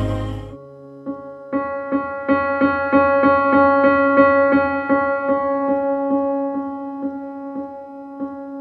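Title-card music on a keyboard: one note struck over and over, about three times a second, slowly fading toward the end.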